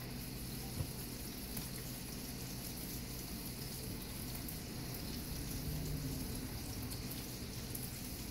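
Sockeye salmon fillet frying in a pan, a steady sizzle with one light knock about a second in.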